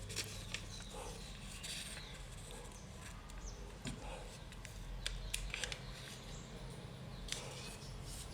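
A square sheet of paper being folded along a diagonal and creased by hand: faint rustling with a few short sharp crackles, a cluster about five seconds in, over a steady low hum.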